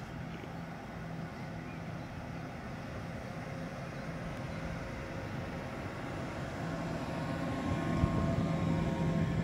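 Double-deck Intercity 2 train running into the station, a steady rumble with a low hum that grows louder as the control car approaches and passes. Faint steady high tones come in during the second half, and a single knock sounds about eight seconds in.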